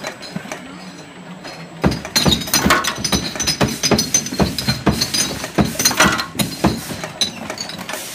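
Glass medicine bottles clinking and knocking against each other and the metal guides of a labelling-line conveyor, a quick irregular clatter that starts about two seconds in over a steady machine hum.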